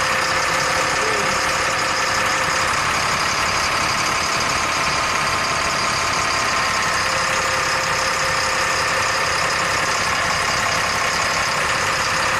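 LMTV military truck's Caterpillar 3116 six-cylinder turbo diesel idling steadily, heard close up in the engine bay.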